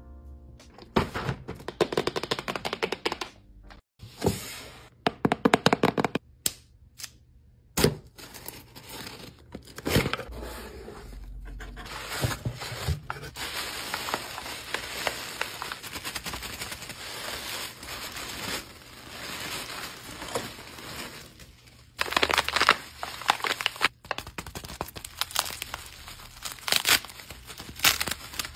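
Hands unwrapping packaging: pink tissue paper rustling and tearing, then bubble wrap crinkling and crackling loudly from about two-thirds of the way in. Runs of quick sharp clicks come first, in the opening seconds.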